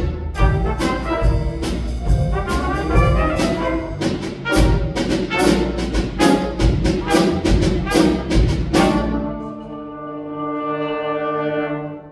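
Jazz combo of trumpets, trombone, piano, bass guitar and drum kit playing loudly with sharp drum hits, then ending the tune on a long held chord from about nine seconds in that cuts off near the end.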